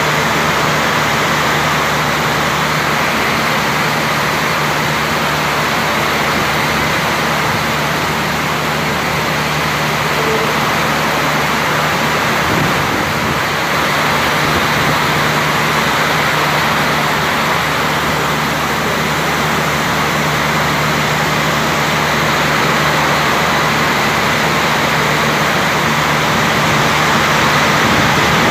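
Heavy monsoon rain pouring steadily: a dense, even hiss of downpour.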